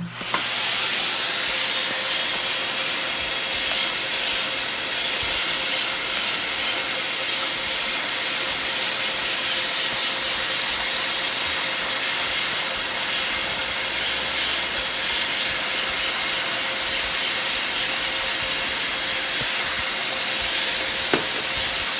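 Vacuum cleaner switched on at the start and running steadily, a constant rushing hiss with a faint steady hum, as its brush attachment is worked over Lego base plates. A short click comes near the end.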